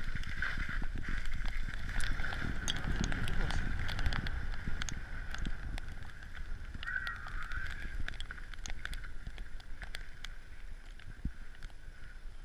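Wind rushing over the microphone and skis scraping and hissing over snow on a downhill run, with scattered clicks and knocks.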